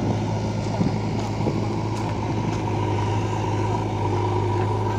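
Heavy diesel engine idling steadily, a low even drone.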